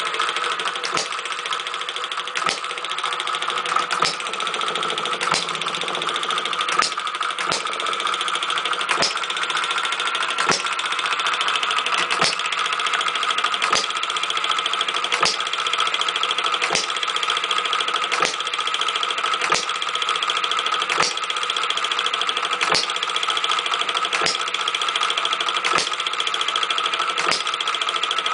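Homemade model six-cycle hit-and-miss gas engine with a flyball governor running under its own power: a steady mechanical whir and clatter, with a sharp firing pop about every second and a half.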